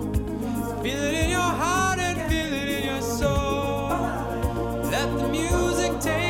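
A song with a singing voice over a steady beat. The voice comes in about a second in.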